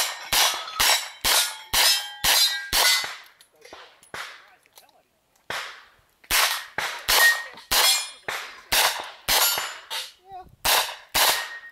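Revolver shots fired about twice a second, each followed by the clang and ring of a struck steel plate. After a string of shots there is a pause of about two seconds, then another run of shots and ringing steel.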